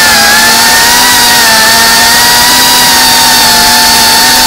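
Electric motors and propellers of an FPV racing quadcopter whining loudly at a high, nearly steady pitch, with only small dips in pitch as the throttle is held fairly even.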